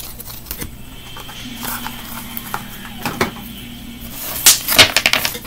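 Oracle card deck being handled: a few soft taps and rustles, then a quick run of sharp clicks and rustles of cards near the end.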